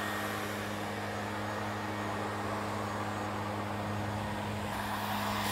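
Steady low motor hum, an engine running evenly at a constant speed, with a steady hiss over it.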